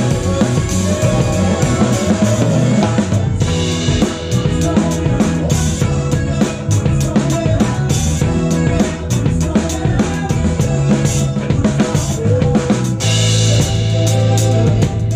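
A drum kit played with sticks, heard close up, with rapid snare and bass drum strokes and cymbals over the rest of a live band. Sustained low notes and held chords run underneath.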